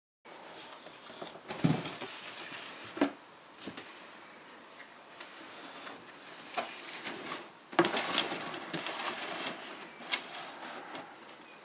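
Strapped cardboard box of brake discs and pads handled and turned over on a hard surface: two sharp knocks in the first few seconds, then a stretch of cardboard scraping and rubbing about two thirds of the way in.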